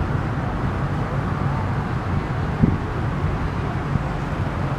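An engine running steadily at a low hum, with one short thump about two and a half seconds in.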